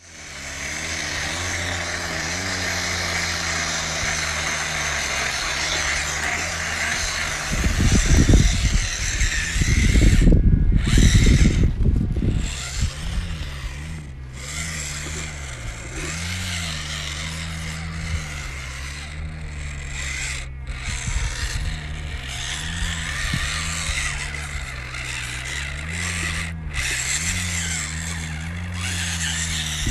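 Electric motor and gear drive of a 1/18-scale Rochobby Katana RC crawler whining as it crawls, its pitch wavering up and down with the throttle. A loud low rumble comes from about 8 to 12 seconds in.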